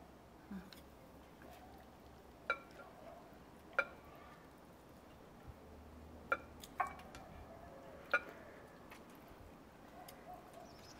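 Chopsticks clinking against porcelain rice bowls during a meal: about six light, spread-out clinks, each with a short ring.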